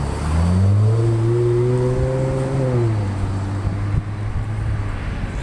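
An unseen engine running and revving: its pitch rises over about the first second, holds, then drops a little before halfway and settles to a steady lower run.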